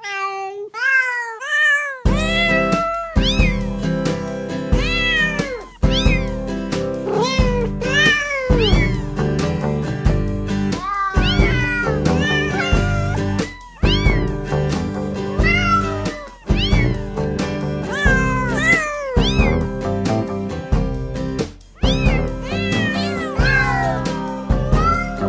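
Novelty music made of cat meows set to a melody over a backing track. The meows sound alone at first, and the backing music comes in about two seconds in.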